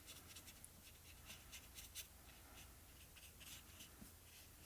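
Faint, quick scratching strokes of a colouring tip rubbing across card paper, several a second and unevenly spaced, as colour is worked and spread over the sky area.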